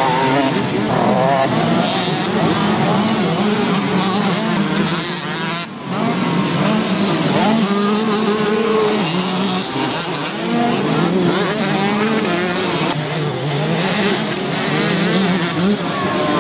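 Several 125cc two-stroke motocross bike engines racing, revving up and down hard through the gears as they pass, with a brief drop in level about six seconds in.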